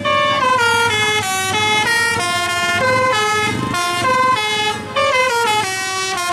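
Bus telolet horn, a set of multi-tone air horns, playing a quick melody of stepped notes, about four or five notes a second, without a break.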